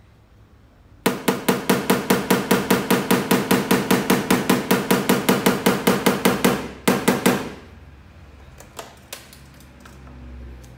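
Rapid, even light tapping of a paintless dent repair tap-down tool on the sheet steel of a Fiat Palio rear door, about seven taps a second. The taps start about a second in, stop near the end of seven seconds after a short last flurry, and work the metal around the dent to blend it level with the rest of the panel.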